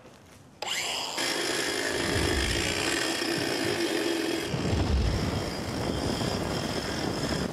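Electric angle grinder starting about half a second in and cutting a steel bar, a steady high whine over grinding noise. About four and a half seconds in a deep rumble comes in as petrol-soaked cardboard boxes catch fire from the sparks, while the grinder's whine carries on.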